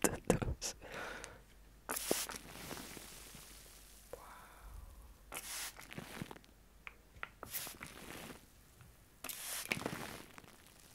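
Hand-held trigger spray bottle spritzing water onto a cling-film-wrapped microphone: four short hissing sprays a couple of seconds apart, the last one the longest, with light crinkles and ticks of the plastic film in between.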